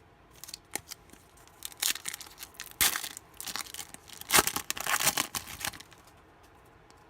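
A trading-card pack's wrapper being torn open and crinkled, in a series of noisy rips and rustles, heaviest from about two to six seconds in.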